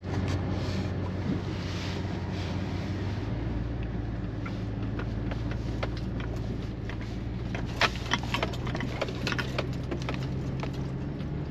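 Truck driving on a snow-covered, icy, rough road, heard from inside the cab: steady engine and road hum, with a cluster of sharp knocks and rattles about eight to nine and a half seconds in.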